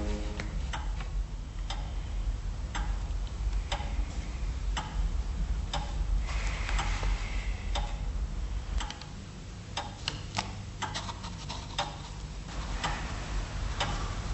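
A clock ticking about once a second over a low steady hum.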